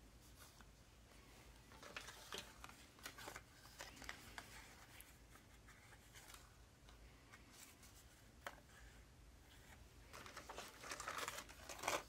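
Faint rustling and light clicking of cardboard notion cards of snap fasteners and buttons being handled and shuffled among thread spools in a plastic sewing tin. The sound is busiest about two seconds in and again near the end, with a sharper click at the very end.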